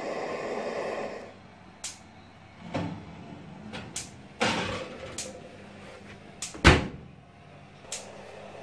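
Kitchen oven door and wire racks being handled: a series of clicks and metal knocks, with a loud clunk of the door shutting near seven seconds in. It follows a steady rushing noise that stops about a second in.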